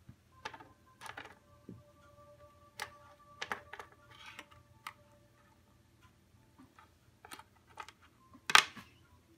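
Scattered small clicks and taps of a cat pawing a plastic baby pacifier across a wooden table and mouthing it, with a louder click about a second before the end.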